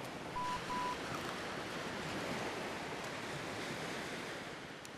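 Gentle surf washing on a sandy beach, a steady hiss of small waves, with two short high beeps just under a second in.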